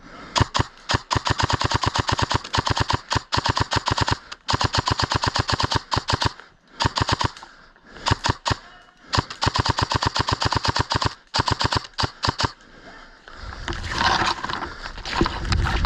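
Airsoft gun firing on full auto, close by: a fast rattle of shots in several long bursts with short pauses, stopping about three seconds before the end. Near the end a rough rustling noise takes over.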